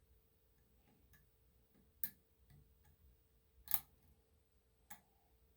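Faint, irregular clicks of a lock pick working the pins of a Schlage Everest lock cylinder. A few sharper clicks stand out about two, three and a half, and five seconds in.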